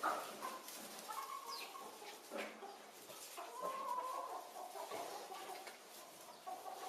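Chickens clucking, with short high chirps now and then.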